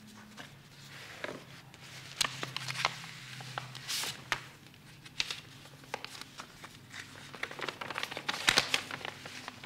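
Paper rustling and crinkling in irregular crackles as a sealed envelope is opened and the letter inside, a will, is taken out and unfolded.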